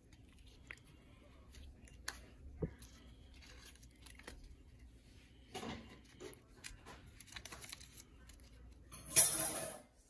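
Sheets of coloured paper rustling and crinkling as they are handled, with scattered small clicks and taps. A louder rustle comes about five and a half seconds in, and the loudest, lasting under a second, just before the end.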